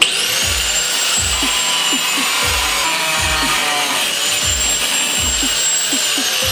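Electric angle grinder with a cut-off disc cutting a steel flat bar: a loud, steady high whine over a grinding hiss that starts abruptly, its pitch falling near the end as the disc begins to spin down.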